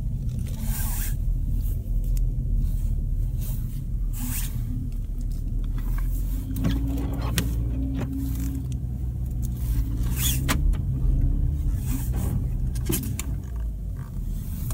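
Inside a car creeping through deep, loose snow on Kumho WinterCraft SUV Ice WS31 studded winter tyres: a steady low engine and road rumble with irregular crunching and scraping of snow under the car.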